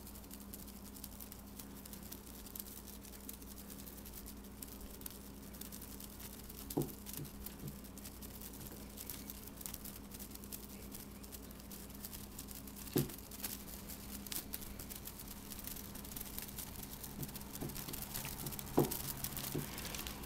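Faint rustling and three soft thumps, one about a third of the way in, one near the middle and one near the end, each followed by a few lighter taps, as a cat bats with its paws at a feather toy on a dresser top. A steady low hum sits underneath.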